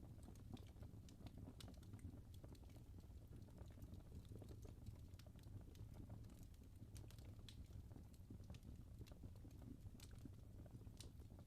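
Wood fire in a fireplace crackling faintly: irregular small pops and snaps from burning logs over a low, steady rumble of the flames.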